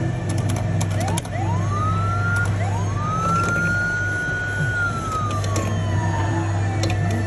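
Electronic police-siren sound effect from a Tecway police-bike kiddie ride, set off by its red dashboard button: two short rising whoops, then one long wail that rises, holds and slowly falls away. Under it runs a steady low hum, with a few sharp clicks in the first couple of seconds.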